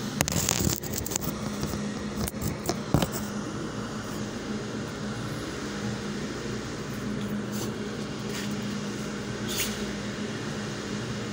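Steady low mechanical hum, with a few sharp clicks and knocks in the first three seconds.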